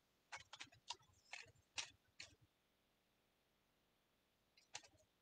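Faint, short clicks and rustles of paper picks being stirred and handled in a bowl, several in the first two seconds and a couple more near the end, with quiet between.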